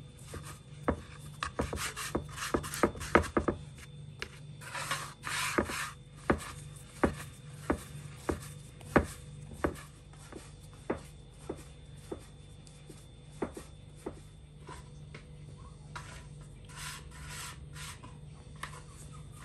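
Hands shaping and pressing dough balls on a floured wooden board: soft rubbing and scraping with irregular light taps on the wood.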